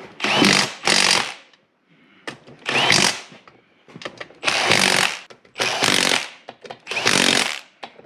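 A hand-held power tool driving bolts, run in six short bursts of about half a second each with pauses between.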